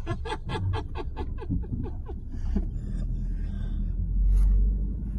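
A quick run of about a dozen short repeated pulses, slowing and fading over the first two seconds or so, then the low rumble of a moving vehicle, swelling a little near the end.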